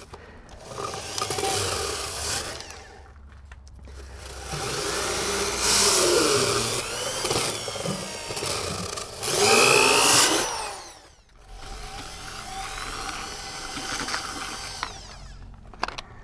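Power drill spinning a rotary dryer-vent cleaning brush on a flexible rod inside the dryer vent duct, knocking lint loose. It runs in three bursts with its pitch sweeping up and down, the middle and longest run the loudest.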